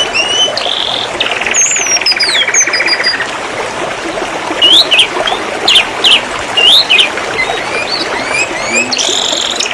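Domestic canary singing a fast, varied song of chirps, sweeping whistles and rapid buzzy trills, over a steady background hiss.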